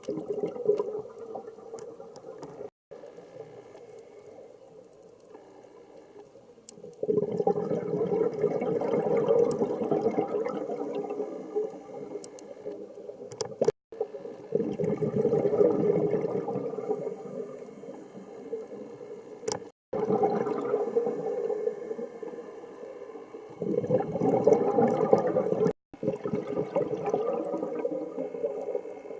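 Scuba diver's regulator exhaust: exhaled bubbles gurgling and rushing underwater in several long bursts a few seconds each, with quieter stretches between.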